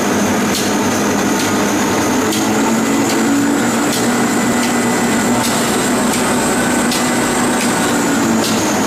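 Toilet paper rewinding machine running steadily as the jumbo roll's paper web feeds over its rollers, with a steady high whine, a low hum and a light click about once a second.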